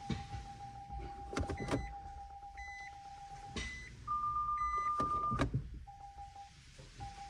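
Nissan Leaf ZE1 creeping at low speed with its electronic pedestrian warning sound giving steady tones and short higher beeps. Several sharp clicks come from the front suspension, a cluster about a second and a half in and more later on. This is the clicking of the drive shaft splines in the front hub that grease has not cured, which the owners take for worn splines in the hub or on the CV joint shaft.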